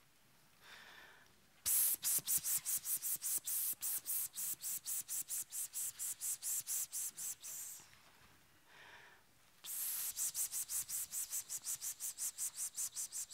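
A woman's rhythmic hissing breaths close to a headset microphone: a quick intake of breath, then a long run of short, sharp hissed puffs at about six a second. After a pause she takes another breath and starts a second run.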